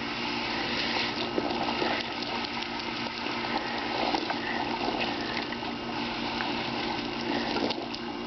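Garden hose spraying a steady stream of water, with splashing as the dogs snap at the spray.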